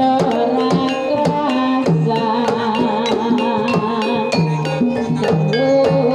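Live Javanese gamelan ensemble playing a Banyumasan tayub piece: kendang hand-drum beats over struck xylophone bars and gong-kettle notes, with a dense, steady rhythm.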